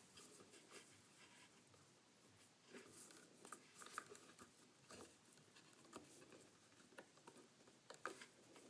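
Faint rustling and scattered small ticks of nylon paracord being passed under, over and through the bracelet weave and handled.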